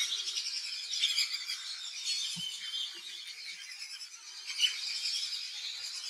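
A dense chorus of many birds chirping and calling at once, high-pitched and overlapping, with a brief low thud about two and a half seconds in.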